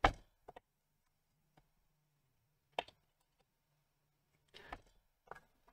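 Sparse light clicks and taps: one sharper about three seconds in, then a few more near the end. They come as the power-supply transistors on a class D amplifier's heatsink are pushed and tapped to check whether their legs have broken off the board.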